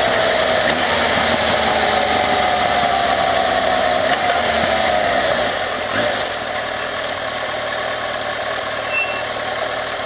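Kawasaki ZRX's inline-four engine slowing down, its pitch falling as the motorcycle decelerates, then dropping to a steady low idle about six seconds in.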